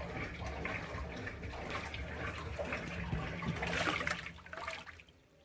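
Consul top-loading washing machine agitating, water sloshing over a steady low motor hum, with the rubbing-type noise of a fault in the agitation; the sound drops away sharply near the end. The repairer traces the noise to a failed seal on the spin tube around the agitator shaft, with oil leaking into the wash water.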